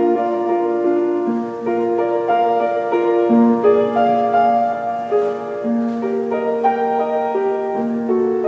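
Slow, gentle instrumental background music on piano or electric keyboard, with long held notes changing about once a second.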